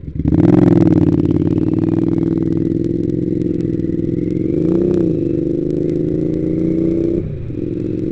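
Triumph America motorcycle's parallel-twin engine pulling away under throttle, heard from the rider's helmet. Its note holds fairly steady with a brief rise and fall about two-thirds of the way through, and it eases off near the end.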